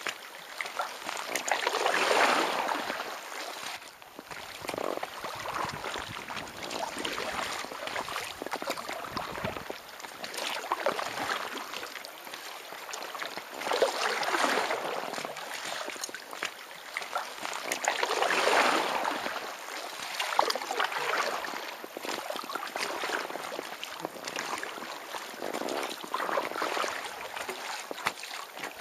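Kayak paddle strokes in lake water: the blades dip, pull and drip, so the splashing swells and fades in a slow rhythm about every four seconds.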